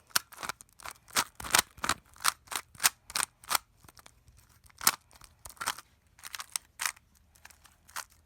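Creativeline SpeedRipper plastic speed cube being turned fast during a solve: a string of sharp, irregular clicks and clacks from the layers snapping round, a few each second.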